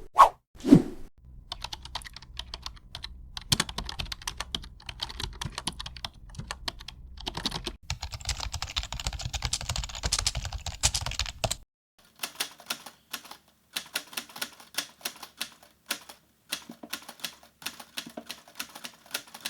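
Typing on a computer keyboard: rapid, irregular key clicks. A low hum runs under the clicks until past the middle, then stops and the clicks go on alone.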